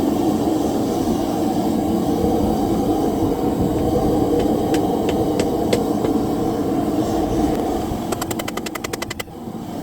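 Steady roar of a blacksmith's forge. A few sharp metallic taps come around the middle, and a fast run of taps, about ten a second, comes near the end.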